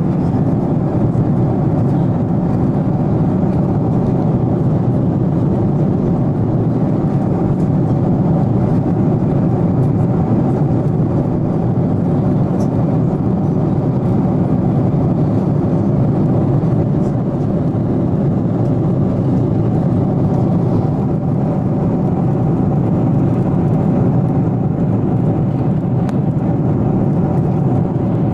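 Airliner cabin in flight: a steady, even drone of jet engine and airflow noise heard from inside the cabin, low and unchanging.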